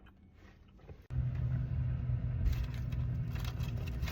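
A steady low car rumble with a hum starts abruptly about a second in and runs on: a car engine running, heard from inside the car.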